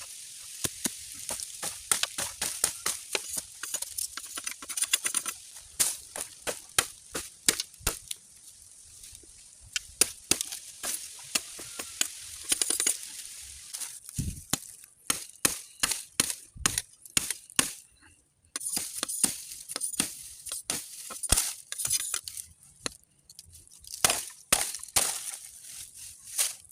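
Repeated sharp chopping strikes of a blade on bamboo as twigs and branches are cleaned off a felled stem. The strikes come irregularly, in quick runs with short pauses between them.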